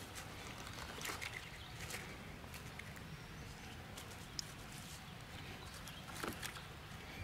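Light rustling and a few faint crackles of dry pine needles and litter as morel mushrooms are picked by hand from the forest floor.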